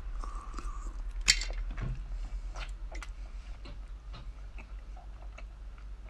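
A person chewing and biting spicy seafood pulled off a bamboo skewer: wet mouth clicks and smacks, with one sharper click about a second in.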